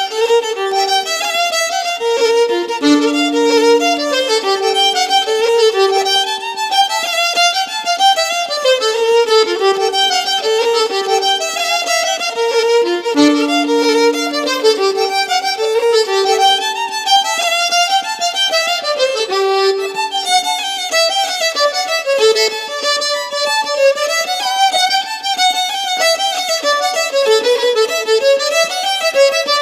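Background music: a fast, lilting tune played as a single melodic line, its opening phrase coming round again about halfway through.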